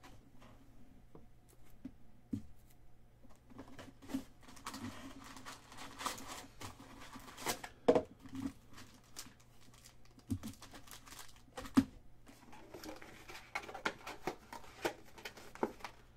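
Panini Contenders football card packs being torn open by hand: foil wrappers crinkling and tearing, with cards rustling and handled. A few sharper taps stand out, one about halfway through and one a few seconds later.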